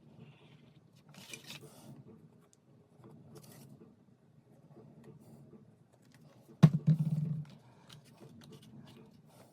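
Workbench handling of wooden model-kit parts being glued in place: a couple of short scraping rustles and small clicks, with one sharp knock about two-thirds of the way through.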